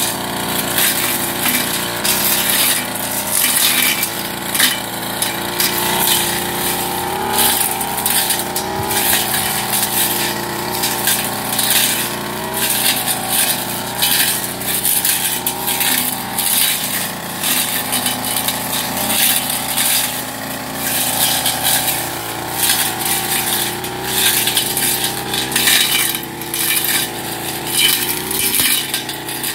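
Backpack brush cutter's small two-stroke engine running under load, its pitch wavering as the cutter works, with frequent sharp clicks and clinks of the spinning cutting head striking weed stems and woody shrubs.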